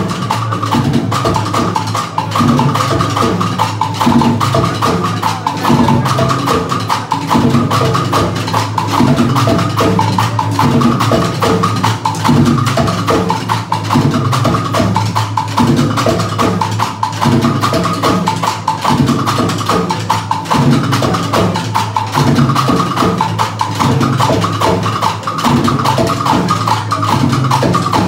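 Live percussion ensemble: several players on timbales and a tall hand drum playing together in a dense, driving rhythm that never stops, with the drums' ringing tones showing through.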